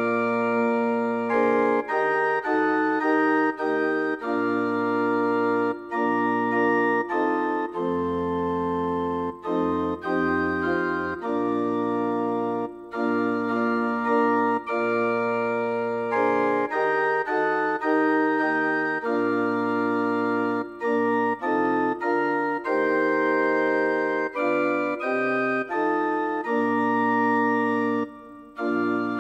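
Organ playing slow chords over a held pedal bass, each chord sustained and changing about once a second, in phrases separated by short breaks.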